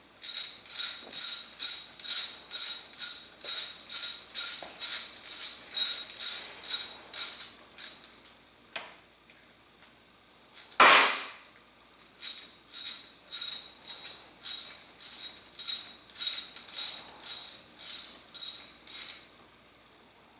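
Ratchet wrench driving in the water pump bolts, with rapid metallic clicking strokes at about three a second. It pauses midway for a single loud clunk, then ratchets on again.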